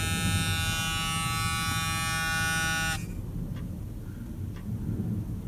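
Dash warning buzzer of a 1981 Chevrolet C10, sounding with the ignition switched on, buzzing steadily and then cutting off suddenly about three seconds in. Faint ticks about once a second follow.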